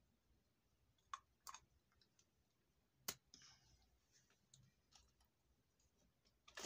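Near silence with a few faint clicks and taps of small plastic cosmetic containers being handled, the sharpest about three seconds in.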